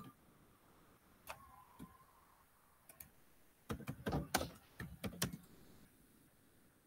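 Computer keyboard typing, faint: a few scattered keystrokes, then a quick run of keys about four to five seconds in.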